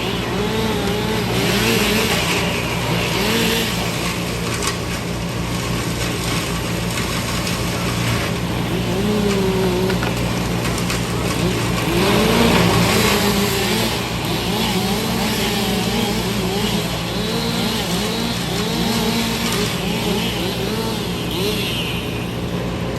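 Heavy machinery engine running steadily, with wavering tones rising and falling over the drone.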